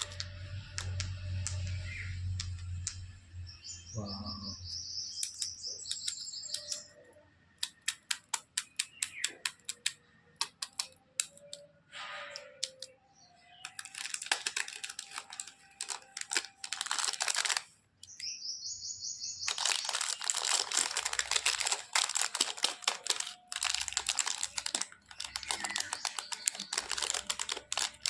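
Candy packaging being handled: scattered clicks and taps, then long spells of crinkling plastic wrapper from about halfway through.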